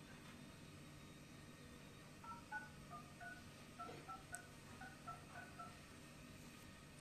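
Mobile phone keypad dialing tones (DTMF): about eleven short, faint two-note beeps in quick succession as a number is keyed in, starting about two seconds in.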